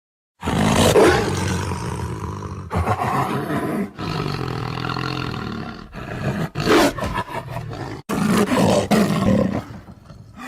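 Lion roaring: a run of deep roars with short breaks between them, starting after a brief silence about half a second in.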